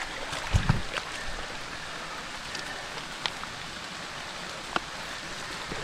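Steady hiss of moving water, like rain or a flowing river, with a dull low thump about half a second in and a few faint clicks later.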